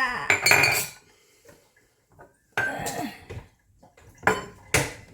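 Measuring cups and utensils clattering and clinking on a kitchen counter as they are gathered together: several separate knocks, with two sharp clinks near the end.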